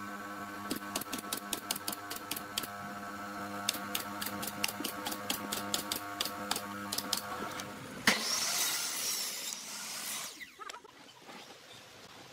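Pneumatic nail gun firing nails into pine boards in a quick, irregular series of sharp clicks over a steady hum. About eight seconds in there is a sharp knock followed by a brief hissing rush.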